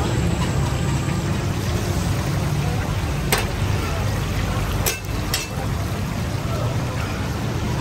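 Beef chapli kababs frying in a wide pan of hot oil, a steady sizzle over a low hum, with a few sharp clicks a little past the middle.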